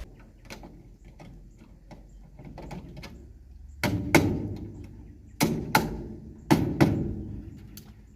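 A tool striking wood: three pairs of heavy knocks, the two blows in each pair about a third of a second apart, over a scatter of lighter clicks and taps.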